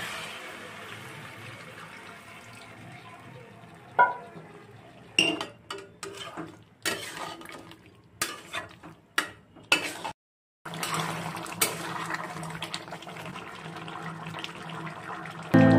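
Chicken curry cooking in a steel kadai: a steady sizzle, then a metal spatula scraping and knocking against the pan over several seconds in the middle. After a short break comes a steady hiss of liquid as water goes into the hot curry.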